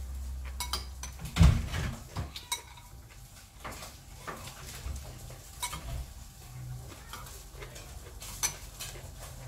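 Metal fork and spoon clicking and scraping against a small glass bowl, with one louder thump about a second and a half in.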